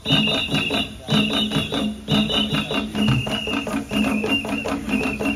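A drum troupe playing a fast, loud rhythm on hand drums, several strokes a second. High held tones sound over the beat in phrases of about a second each.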